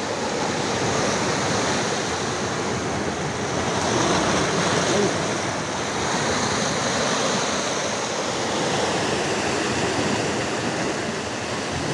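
Sea waves breaking and washing over a rocky shore: a steady noise of surf, swelling a little about four seconds in.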